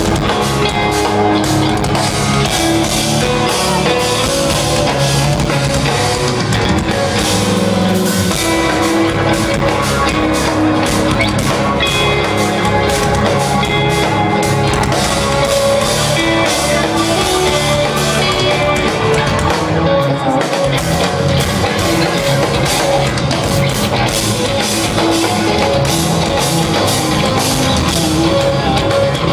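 Live instrumental progressive metal played loudly: eight-string electric guitars over a drum kit, heard through a venue PA from within the crowd.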